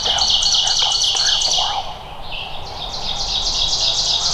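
A small songbird singing twice, each song a fast run of repeated high notes lasting about two seconds.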